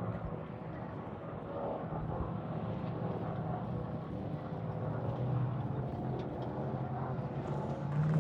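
Off-road race vehicle's engine running, a steady low hum that grows louder near the end.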